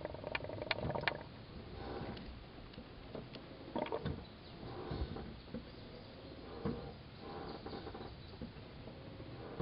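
Old brake fluid spattering through a vinyl bleeder hose into a soda-bottle catch container while the brake pedal is pumped, heard as faint, irregular splashes.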